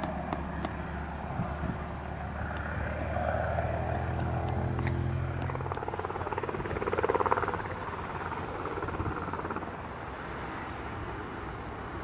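Aircraft engine noise: a steady low drone whose tones fade out about halfway through, leaving a softer rushing sound.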